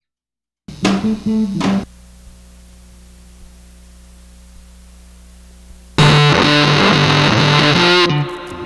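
Band sound check: short bursts of distorted electric guitar with bass, cut off between them so that only a low amplifier hum remains. Two quick chord stabs come about a second in. After a few seconds of hum, a louder two-second stretch of playing starts and dies away near the end.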